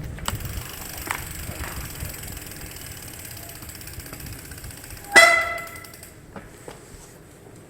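Electric mountain bike ridden indoors, with a faint rapid ticking over a steady high hiss. About five seconds in comes one short, loud ringing note that fades within about half a second.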